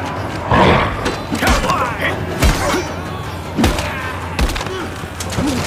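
Film fight sound effects: a run of heavy thuds and impacts, about five in a few seconds, each with a deep thump, over a busy battle bed.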